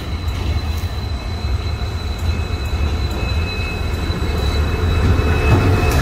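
WDG4 diesel-electric locomotive approaching on a steel truss bridge and drawing level near the end, its low engine and track rumble growing steadily louder. A faint steady high whine runs above it.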